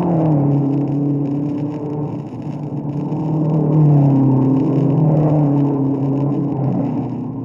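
Racing car engines on an old 78 rpm sound-effects record, the engine note falling, then rising to its loudest about four seconds in, and falling away again. The sound is thin and band-limited, with surface noise.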